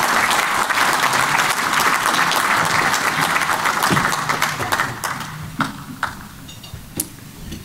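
Audience applauding. The applause thins out about four seconds in and dies away to a few scattered claps.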